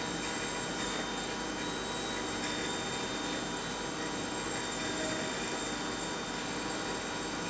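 CNC machining centre running with coolant spraying onto the workpiece during deep-hole drilling in stainless steel: a steady hiss and hum with faint, even whining tones.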